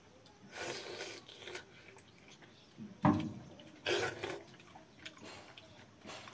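Hand-eating sounds of basi pakhala (rice soaked in water) with chicken: several short, wet mouthfuls, the loudest just after three seconds in. Near the end, fingers squelch in the bowl of watery rice.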